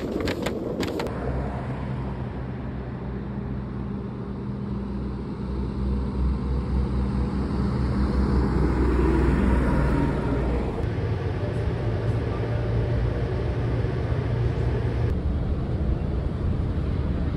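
A road vehicle's engine running with a steady low hum, amid traffic noise that grows louder about nine seconds in.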